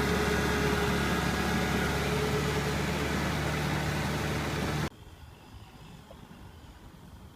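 Kubota M6040 SU tractor's four-cylinder diesel engine running steadily, then cutting off abruptly about five seconds in, leaving a much fainter low rumble.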